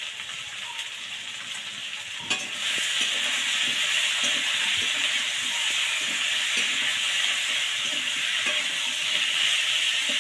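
Potatoes and spices sizzling as they fry in mustard oil in a metal wok, with a metal spatula scraping and knocking against the pan as they are stirred. The sizzle grows louder about two seconds in, after a sharp click.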